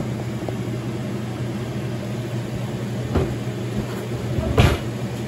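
A steady low machine hum from a kitchen fan or appliance. A couple of brief knocks come about three and four and a half seconds in, the second louder.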